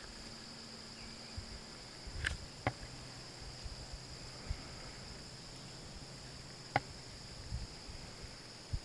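Insect chorus, a steady high trill, with a few sharp clicks and low bumps scattered through; the sharpest click comes near seven seconds in.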